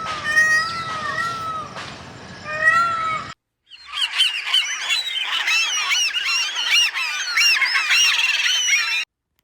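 Repeated short pitched animal calls for about three seconds, then a sudden cut and, after a brief gap, a dense chorus of many high-pitched bird chirps overlapping, as from a flock.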